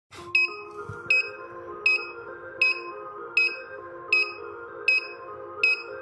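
Piezo buzzer on an Arduino smoke detector board sounding its alarm: a short high beep about every three-quarters of a second, set off by smoke at the MQ2 gas sensor. Background music plays underneath.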